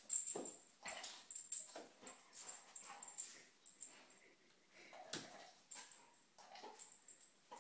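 Puppy whimpering and whining in short, irregular bursts, excited over a treat, with scattered clicks of paws and the treat on the tile floor.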